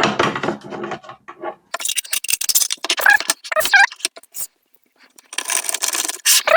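A desktop PC's case part being fitted back on by hand: irregular scraping and rattling with sharp clicks.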